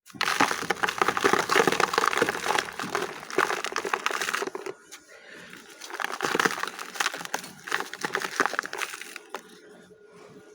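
Dry chunks of Multani mitti (fuller's earth clay) being crushed and crumbling, a dense crunchy crackle for the first four seconds or so, then sparser, quieter crunches.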